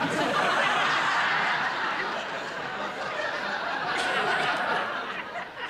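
Studio audience laughing, breaking out suddenly and dying away after about five and a half seconds.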